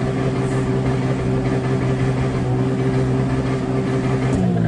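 Suzuki Jimny's engine free-revved while parked, held steady at high revs near its 8000 rpm maximum, then the revs fall away as the throttle is released near the end.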